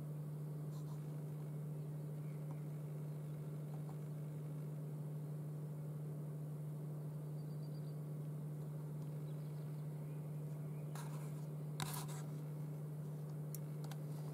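A steady low hum, with a few brief clicks and rustles about eleven and twelve seconds in, like the camera being handled.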